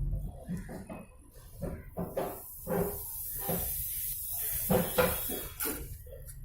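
Irregular knocks and clatter of parts and tools being handled during refrigerator coil flushing, with a high hiss from about two seconds in.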